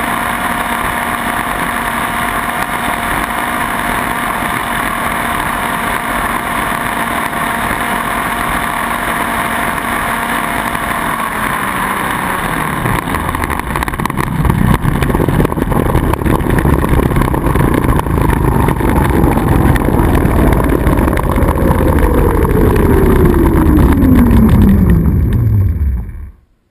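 A propeller-driven tether car's small two-stroke model engine runs at a steady high pitch, then its pitch falls away as it winds down. A louder low rumble joins about halfway, and a whine slides steadily down in pitch as the propeller slows, cutting off just before the end.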